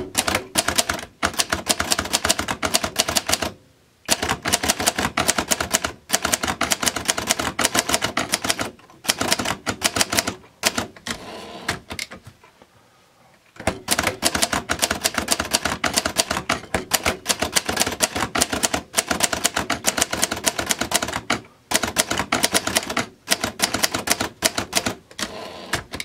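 1962 Hermes 3000 manual portable typewriter being typed on: fast runs of key and typebar strikes, broken by brief pauses, the longest about twelve seconds in.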